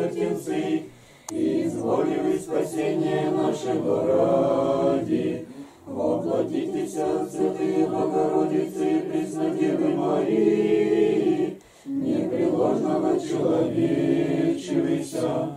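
Small church choir singing Orthodox liturgical chant a cappella, in long phrases with brief pauses for breath between them.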